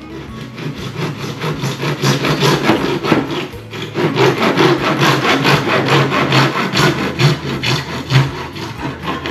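Japanese hand saw cutting through PVC pipe in rapid back-and-forth strokes, each stroke a rasping scrape.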